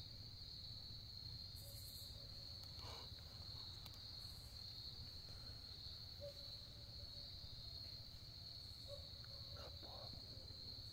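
Insect chorus in woodland: a steady, faint, high-pitched trill that runs on without a break.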